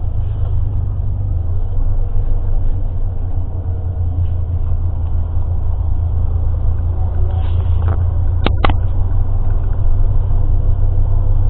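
Steady low rumble of a road vehicle running, with two quick sharp clicks about eight and a half seconds in.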